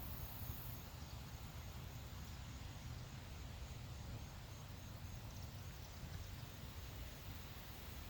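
Faint, steady outdoor background noise: a low rumble with a light hiss above it and no distinct event standing out.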